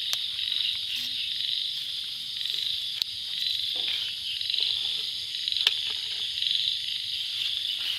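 Steady, high-pitched trilling chorus of night insects, with two sharp clicks, the louder one a little over halfway through.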